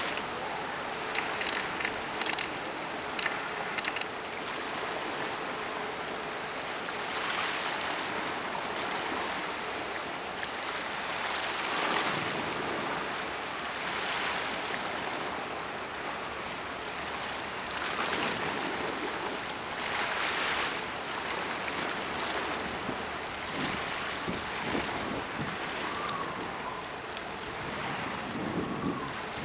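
Wind rushing on the microphone over water washing at the waterside, swelling and easing in surges every few seconds, with a few small clicks in the first few seconds.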